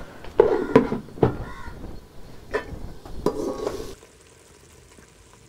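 Metal ladle stirring sevaiyan in a metal pot over a wood fire, knocking and scraping against the pot's sides in a handful of sharp clinks. After about four seconds the stirring stops and only a faint hiss remains.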